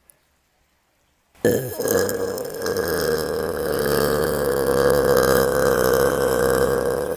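A girl's single long, loud burp at a steady pitch, starting suddenly about a second and a half in and carrying on without a break.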